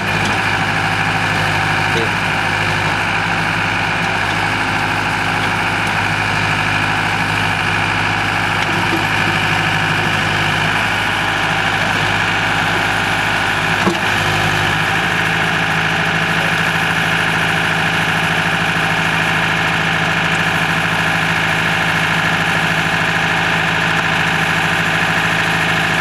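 Escorts Powertrac 4455 tractor's diesel engine running steadily at a constant note. About 14 seconds in there is a short click, and right after it the engine's low note changes.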